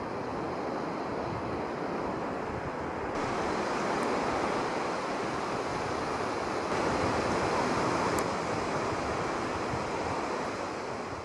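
Small waves breaking and washing up a sandy beach: a steady rush of surf, a little louder in the middle.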